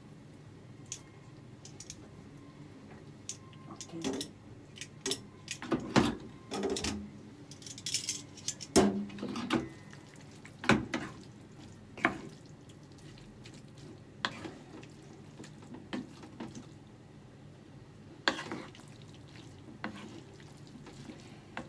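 Wooden spatula clacking and scraping against a frying pan as spaghetti is stirred and tossed, in irregular knocks with short gaps between them.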